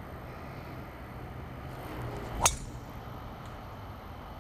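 A golf driver strikes a ball off the tee: a short swoosh of the downswing, then one sharp, loud crack of the clubface on the ball about halfway through.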